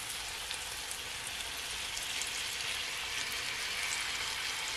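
Steady sizzle of saltfish, sweet peppers and onions sautéing in oil in a skillet, with fine crackles.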